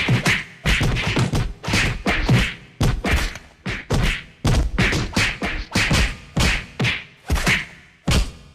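A rapid, uneven run of percussive hits, about two to three a second, mixing low thumps with hissy snaps, easing off near the end.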